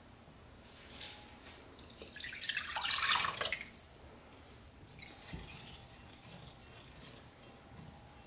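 Broth-and-water mixture poured from a glass measuring cup into a glass mixing bowl, splashing and rising to a peak for about a second and a half. Then a few faint clicks and scrapes of a spatula stirring the liquid.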